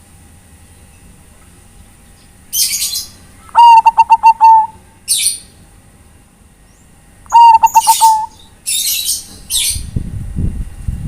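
Bangkok-type zebra dove (perkutut) singing: two short phrases of quick coos, about four seconds in and again near eight seconds, loud enough to clip. Short hissing rustles come between the phrases, and a low rumble near the end.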